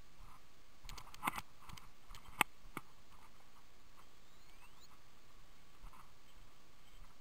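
Footsteps over loose stones on a rocky slope: a few light knocks about a second in, then one sharp click of stone on stone about two and a half seconds in.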